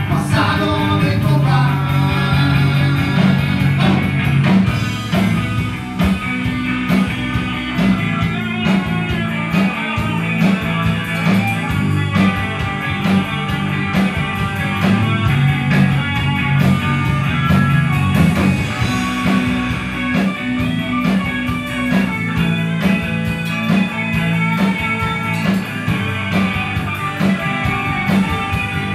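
Live rock band playing electric guitars over a drum kit, a full, loud band sound with a moving low line and a steady beat.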